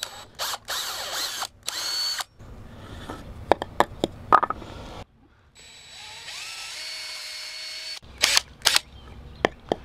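Yellow DeWalt 20V cordless drill cutting into a 2x6 block, first in several short bursts with a 1¼-inch hole saw, then in one steady run of about two and a half seconds with a twist bit boring a pilot hole through the board, its whine rising and then holding. Scattered clicks come between the two, and two sharp clicks follow the steady run.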